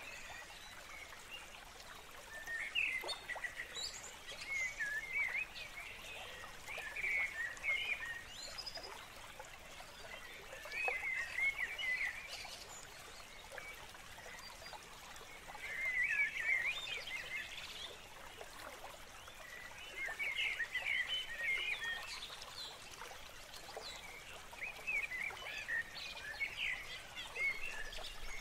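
A bird singing short bursts of chirping phrases every few seconds, over a faint steady hiss.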